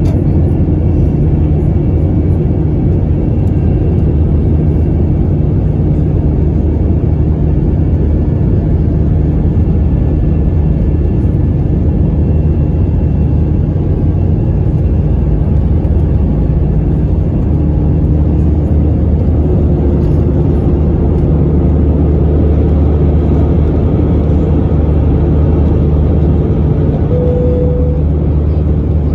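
Airbus A321-200 jet engines at takeoff thrust, heard inside the passenger cabin as a loud, steady roar over a heavy rumble during the takeoff roll. About two-thirds through, the deep rumble eases as the aircraft lifts off and begins to climb.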